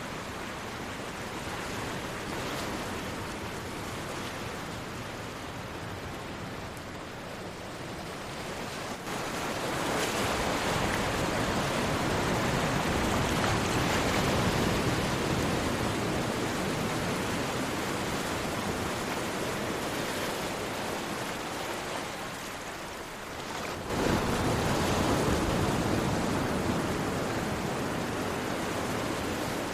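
Sea waves breaking and washing on a shore. A wash swells about ten seconds in and slowly eases off, then another wave breaks suddenly later on.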